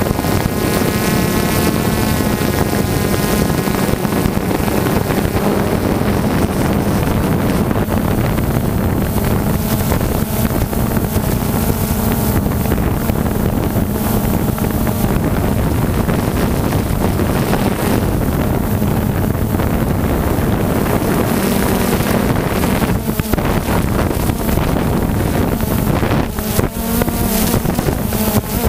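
DJI Phantom 2 quadcopter's propellers and motors running with a steady hum, picked up close by the onboard camera, with wind buffeting the microphone.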